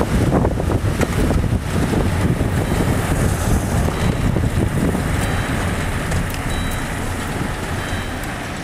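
Strong gusty wind buffeting the microphone, a dense low rumble with rushing noise that eases a little toward the end.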